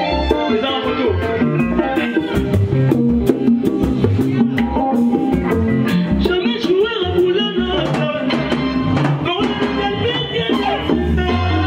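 Live Congolese dance band playing: electric guitar and keyboard lines over a drum kit with a steady beat and frequent cymbal hits, with singing over the top.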